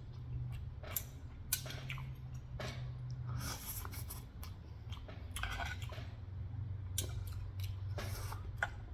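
A person chewing food, with scattered small clicks and mouth sounds, over a low steady hum.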